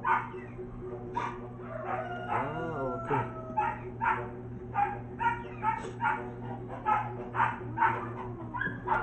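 A dog barking over and over, about twice a second, over a steady low hum.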